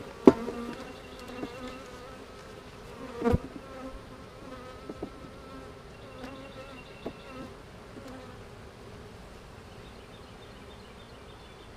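Honeybees buzzing in a steady hum over an opened hive. Two sharp knocks stand out, the loudest just after the start and another about three seconds in.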